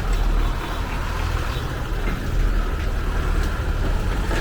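Steady low rumble with a hiss, from vehicles moving past.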